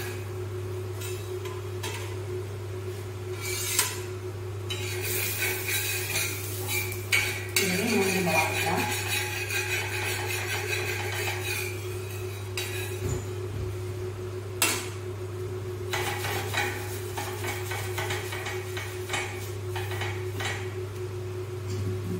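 Steel spatula scraping and clinking on a hot dosa griddle as an uthappam is lifted off and set on a steel plate, with light sizzling for a few seconds in the middle, over a steady low hum.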